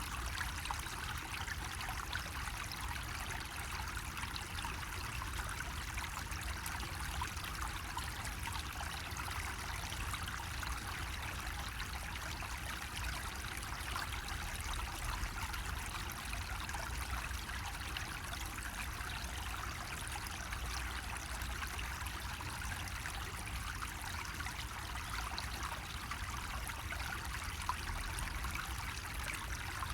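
Water running steadily from a bamboo spout, a continuous trickle and splash with no pauses, over a low rumble.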